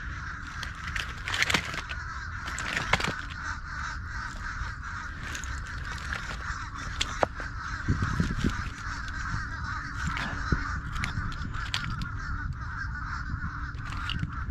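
Oyster shells clinking and crunching as hands dig through an oyster bed and boots step on the shells, in scattered sharp clicks. Low wind rumble on the microphone and a steady high hiss run underneath.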